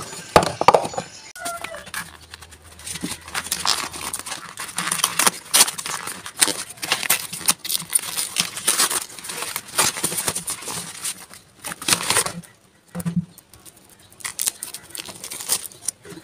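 Hands handling plastic organizer trays and then rustling and crinkling a paper package close to the microphone, with a quieter stretch of a few small knocks near the end.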